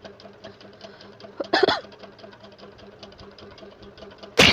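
A woman sneezing twice, once about a second and a half in and again near the end, sneezes brought on by tickling the inside of her nose with a blade of grass. Under them runs a faint, steady, fast ticking.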